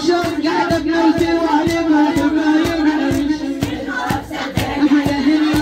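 A woman's voice chanting a Shia latmiya lament in long, wavering held notes, over regular chest-beating strokes (latm) about twice a second.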